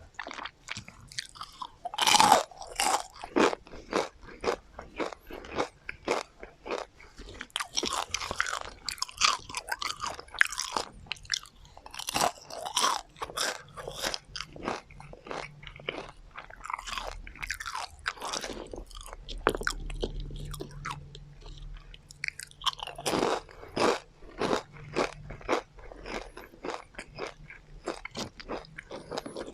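Close-miked crunching and chewing of crispy deep-fried chicken tendons: a steady run of sharp crunchy bites and chews, loudest about two seconds in.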